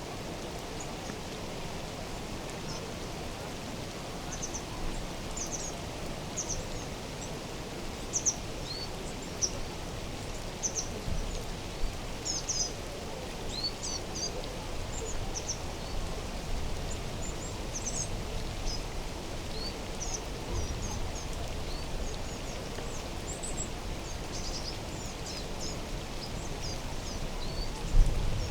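Small birds chirping, with many short, high calls scattered throughout, over a steady low background noise of the mountain outdoors.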